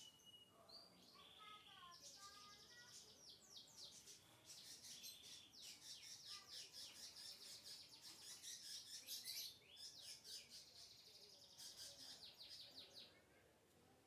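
Faint lovebird chattering: quick high-pitched chirps running together into long trills, broken by a few short pauses.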